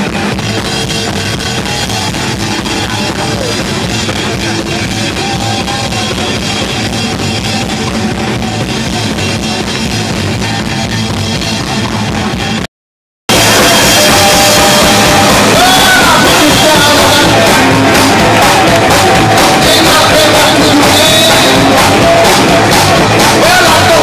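Live rock band playing loud, with drum kit and electric guitar. About halfway through the sound cuts out completely for about half a second and returns louder.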